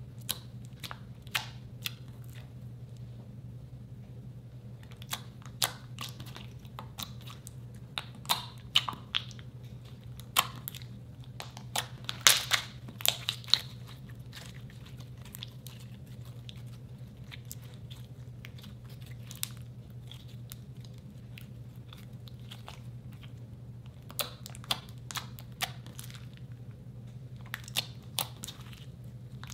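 Fingers pressing, squeezing and stretching a blue slime, making sticky clicks and small air-bubble pops. The clicks bunch up in the middle and again near the end, with a quieter spell between.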